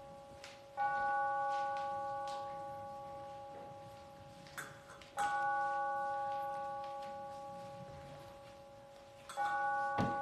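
A bell struck three times, about four seconds apart. Each strike rings with several steady tones that slowly fade before the next.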